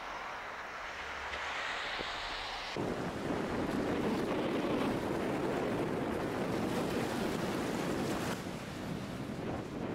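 A steady hiss of outdoor ambience, then, about three seconds in, a sudden change to choppy sea water washing over shore rocks, with wind buffeting the microphone.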